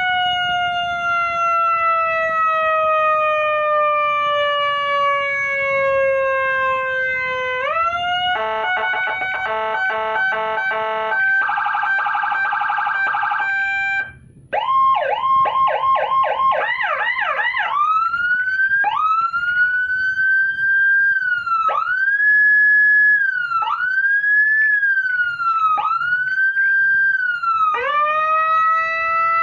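80-watt HHS electronic siren module sounding and cycling through its tones. First a slow falling wail, then a fast stepped warble; it cuts out briefly about 14 seconds in, then gives quick rising yelps and a wail that rises and falls about every two seconds.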